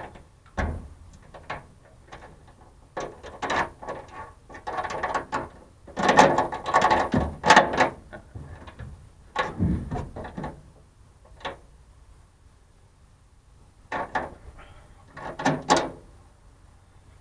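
Truck-bed toolbox and its new lock being handled during fitting: bursts of metal clicking, rattling and knocking with quiet gaps between, the busiest and loudest in the middle.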